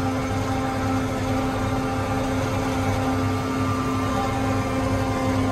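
John Deere 8320R tractor's diesel engine running steadily under load as it creeps along pulling a tile plow, a constant drone with a steady whine over it.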